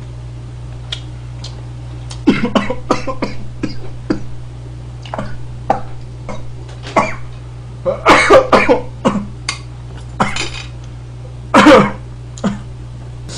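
A man coughing in repeated fits, having choked on food while laughing as he eats spicy noodles. The coughs start about two seconds in, come loudest in a cluster past the middle and once more near the end, over a steady low hum.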